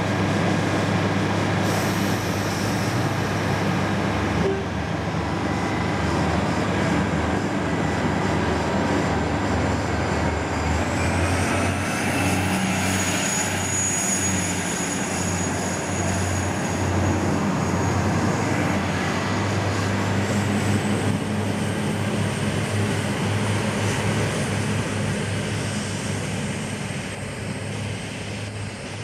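Diesel passenger train running alongside the platform: a steady low engine hum, with a high whine that rises about ten seconds in and again about twenty seconds in as the train moves off past. The sound fades slightly near the end.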